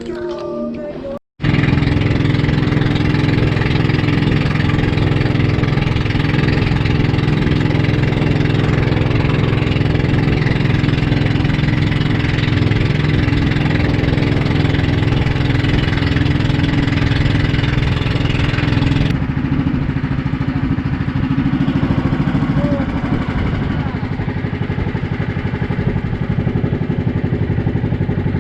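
Small outrigger boat's engine running steadily, starting a little over a second in after a brief break.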